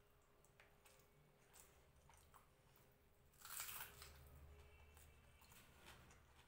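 Faint close-up chewing and small wet mouth clicks of someone eating rice and fish by hand. A little past halfway comes one louder, brief wet mouth sound as her fingers are at her lips.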